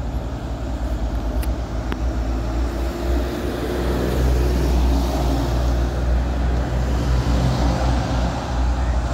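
Highway traffic: heavy road vehicles running past, a low engine rumble with tyre and road noise that swells about four seconds in.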